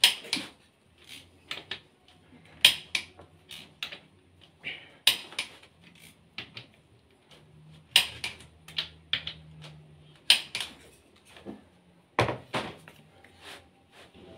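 Socket wrench clicking and metal tools knocking against the bare engine block while the crankshaft bearing-cap bolts are worked: irregular sharp clicks, about one or two a second, a handful of them louder.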